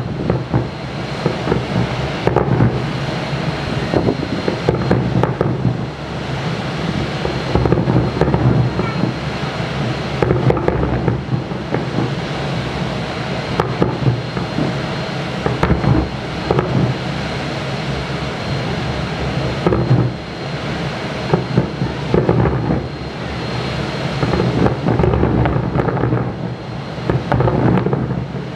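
Aerial fireworks shells bursting: many booms overlapping into a continuous rolling rumble, with sharper bangs every few seconds.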